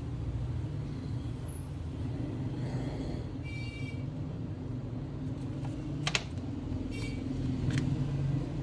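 Steady low background hum, with a few sharp clicks from a smartphone being handled. Two short high tones sound, about three and a half seconds in and again about seven seconds in.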